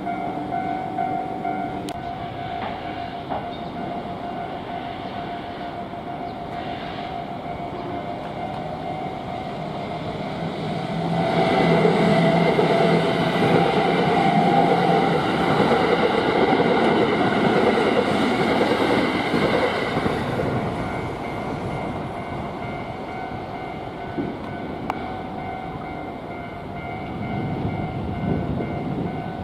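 Japanese level-crossing warning bell ringing its repeating electronic clang. An electric train passes through the crossing about a third of the way in, loud for around nine seconds before fading, and another train rumbles in near the end.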